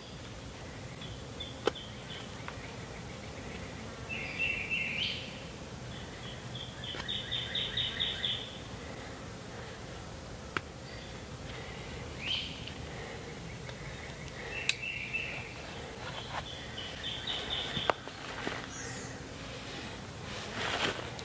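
A songbird singing short trilled phrases, repeated every few seconds, over a steady woodland background hiss, with a few sharp clicks in between.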